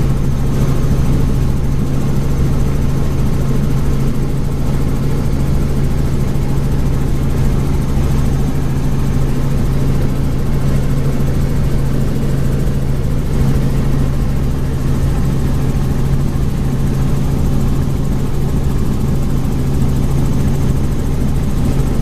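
Helicopter in flight heard from on board: a loud, steady drone of engine and rotor with a strong low hum that does not change.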